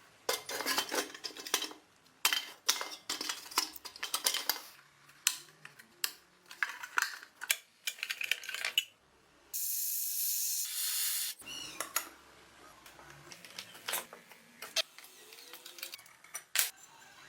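Small metal parts clinking, clicking and scraping in quick clusters, as in hand work on rusty hardware. A steady hiss lasts about a second and a half near the middle.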